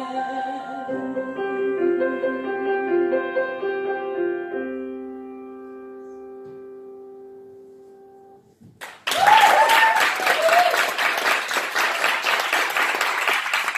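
Piano playing the closing chords of a song, the last chord held and fading away. After a brief lull, about nine seconds in, an audience starts applauding and keeps clapping.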